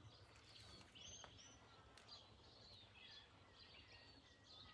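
Faint birdsong: small birds chirping and twittering repeatedly, over a faint low background rumble.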